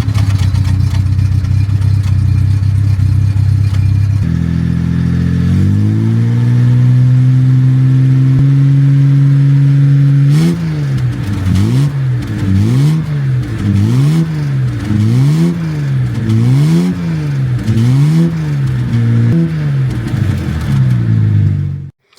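Car engine idling, then raised to a higher steady speed, then revved up and down repeatedly about once a second. It cuts off suddenly near the end.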